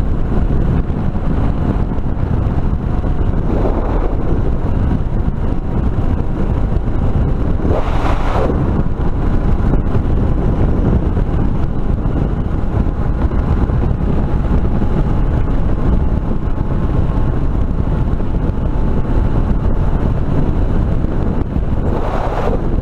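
Wind buffeting the microphone over a Suzuki DR650's single-cylinder engine running at a steady cruising speed. Two brief rushes of noise come about eight seconds in and near the end.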